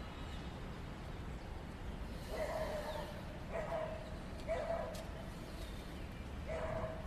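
A dog barking four times, each bark drawn out for about half a second, over a steady low background rumble.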